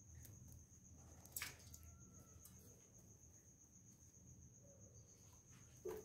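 Near silence: a faint, steady high-pitched tone, with two short sounds, one about a second and a half in and one near the end.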